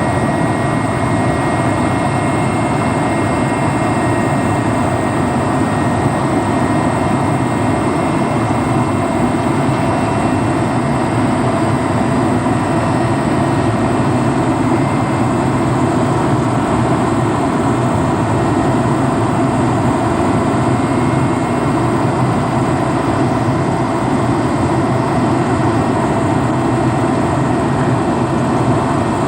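Helicopter engine and rotor noise heard from inside the cabin in flight: a loud, steady drone with a few constant whining tones, unchanging throughout.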